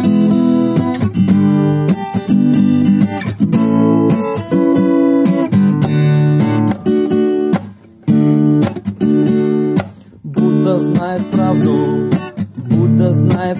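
Acoustic guitar strummed by hand, playing a run of chords as an instrumental passage, with two brief pauses in the second half.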